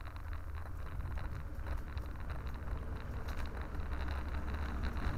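Wind rumbling on the microphone of a camera carried on a moving bicycle, with tyre noise and scattered small rattles and clicks from the bike.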